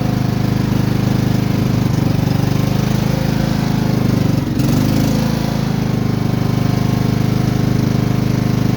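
Cub Cadet Series 2000 lawn tractor engine running steadily just after a hard cold start. It runs on after sitting eight months, once it has, as the owner thinks, finally drawn fuel.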